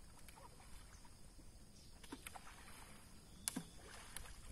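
Faint, distant splashing of people wading and dragging mosquito nets through a muddy river, over a low rumble, with a sharp click about three and a half seconds in.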